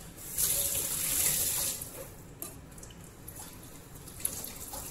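Kitchen sink tap running, loudest for about a second and a half just after the start, then quieter.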